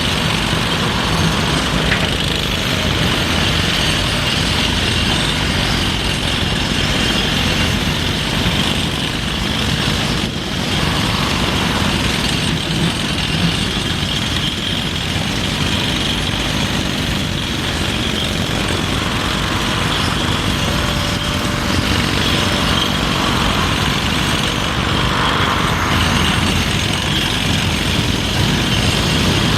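Heavy excavator diesel engines running steadily without letting up.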